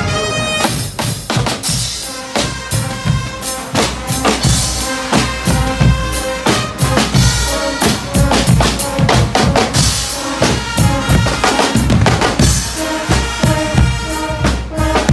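Guggenmusik carnival band's drum section playing a fast, driving beat on drum kit, snare and bass drum while marching. The brass section sounds briefly at the start and comes back in near the end.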